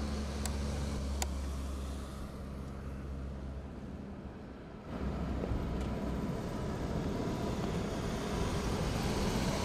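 Erupting Cumbre Vieja volcano on La Palma, its lava fountain giving a continuous deep rumbling roar. About five seconds in, the roar turns louder and more hissing.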